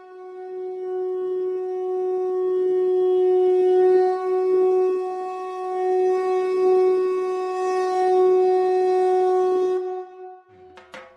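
Conch shell (shankha) blown in one long, steady note of about ten seconds, swelling and easing slightly in loudness before it dies away.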